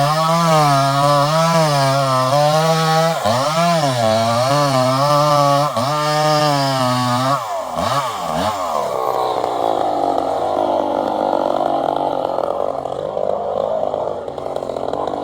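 Chainsaw running at high revs while cutting, its pitch wavering about twice a second. About eight seconds in the revs drop away, leaving a lower, rougher running sound.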